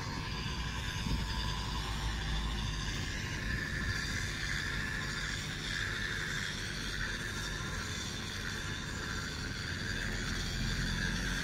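Konstal 105Na tram rolling slowly on rails: a steady running rumble with a wavering high whine over it.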